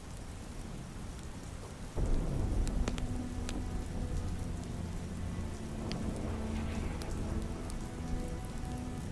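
Steady rain with a low rumble of thunder that comes in suddenly about two seconds in, under a soft ambient music bed of long held low notes. A few sharp pops sound over the rain.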